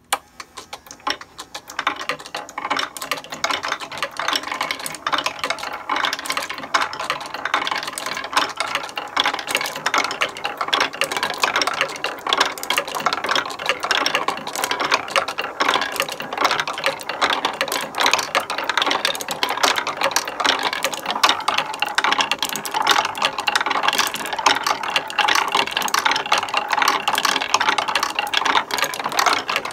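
Wooden marble machine switched on and running: a spiral wooden lift carries marbles up while they roll and clack along wooden tracks and circle in a wooden bowl, a dense, steady clatter of small clicks. It starts suddenly at the very beginning.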